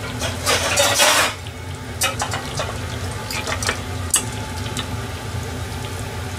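Sardine fish balls deep-frying in a pot of oil: the oil is bubbling and crackling with scattered sharp pops. There is a louder rush of noise for about a second near the start, and a steady low hum underneath.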